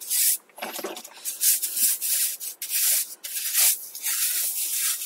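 A brush scrubbing the sprockets of a bicycle cassette in quick back-and-forth strokes, about two to three a second, clearing out caked grease and grit.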